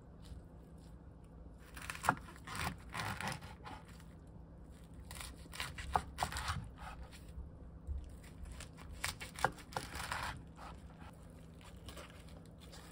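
A kitchen knife cutting three times through a roll of salted cabbage leaves layered with perilla leaves on a wooden cutting board, each cut a short crisp slice that ends in a sharp knock of the blade on the board.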